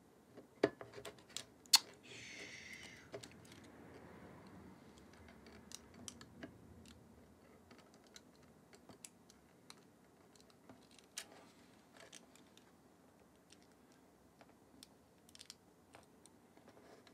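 Small clicks and taps of camera body parts being handled while a Nikon Z50's rear body and ribbon cable are worked into place, with a few sharper clicks about a second in and a brief rustle just after. Then sparse, faint ticks.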